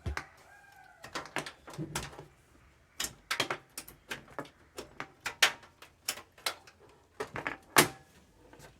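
A run of irregular sharp clicks and knocks from cables being unplugged from a desktop computer and the machine being handled.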